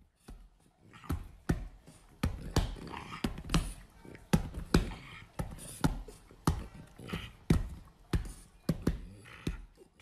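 Background music with a percussive beat of about two knocks a second.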